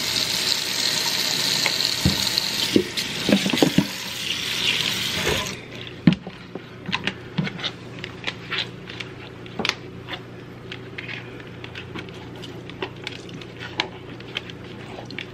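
Sink tap running for about five seconds while makeup brushes are rinsed, then shut off suddenly. After that come scattered small wet clicks and splashes as the brushes are handled.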